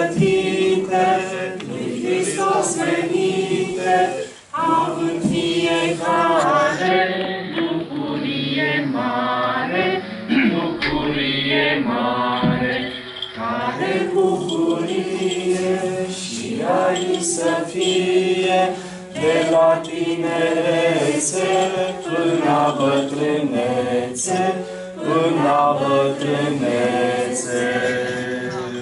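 Unaccompanied choir singing an Orthodox liturgical chant in phrases, with short breaths between them.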